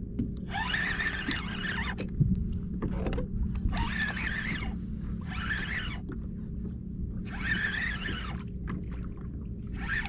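Fishing reel being cranked in short bursts, about a second each with pauses of a second or two between, as a hooked sea bass is pumped and reeled toward the kayak, over a steady low rumble.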